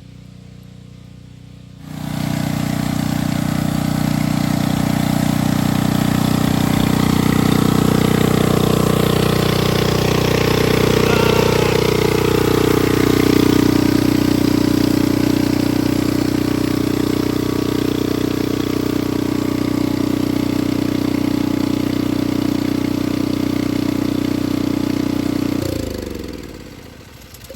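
Two-stroke chainsaw engine with a broken-off muffler. It fires up about two seconds in and runs loud at a steady idle, then shuts off and winds down near the end. The loudness comes from the missing muffler.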